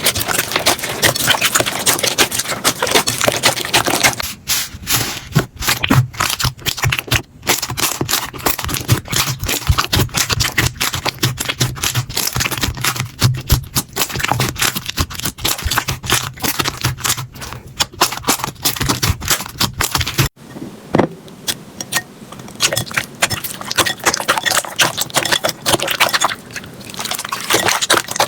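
Slime being squeezed, pressed and stretched by hand: a dense, steady run of crackles, clicks and pops. The texture changes abruptly about four seconds in and again about twenty seconds in, as one slime gives way to the next.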